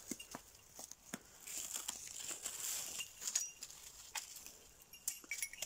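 Rustling and scattered snaps of dry leaf litter and twigs being trodden through.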